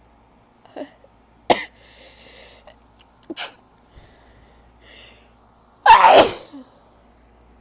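A woman sneezing several times: two short, sharp sneezes about a second and a half and three and a half seconds in, with breaths between, then one big, loud sneeze about six seconds in. She puts the bout of sneezing down to pollen, dust or her cat.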